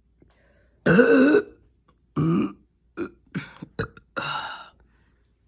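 A woman burping: one long, loud burp about a second in, then a shorter burp and several brief ones over the next few seconds.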